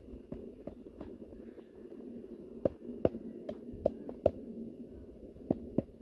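A series of sharp, irregularly spaced knocks and taps over a steady low rumbling noise, with a cluster of louder knocks in the middle.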